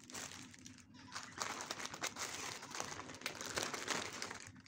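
Clear plastic packaging and a courier polybag crinkling irregularly as they are handled and pulled apart.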